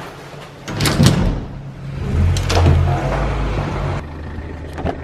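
A car door being handled: latch clicks about a second in, a louder rush of handling noise, and another click near the end, over a steady low hum.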